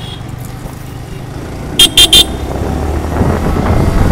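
A vehicle horn beeps three times in quick succession over a running engine, which then grows louder near the end as the vehicle pulls away.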